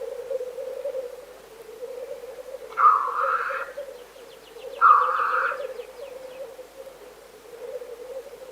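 Black grouse males lekking: a continuous low bubbling cooing, broken about three seconds in and again about five seconds in by two loud hissing 'tchu-wheesh' calls.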